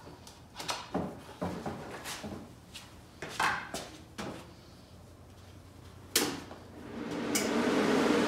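Scattered knocks and clicks of a plug and heavy cable being handled and connected, then a sharp click about six seconds in as the welder is switched on, and its cooling fan starts: a steady whir that builds near the end. The welder powering up shows the dryer-outlet extension cable is delivering power.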